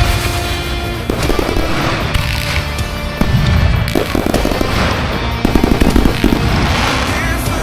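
Consumer fireworks going off in quick succession over loud music, with a dense run of rapid crackles about five and a half seconds in.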